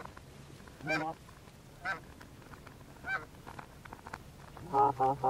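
Canada goose honking: four single honks about a second apart, then a quick run of honks near the end.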